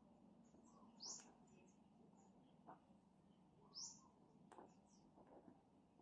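A bird gives a short, high, falling chirp twice, about every two and a half seconds, over the faint scratch of a Tombow Fudenosuke hard-tip brush pen writing on paper.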